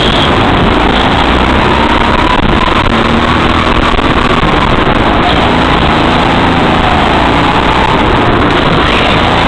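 Indoor go-kart engine running at speed, heard loud from on board the kart, its pitch wavering up and down as the throttle changes through the corners.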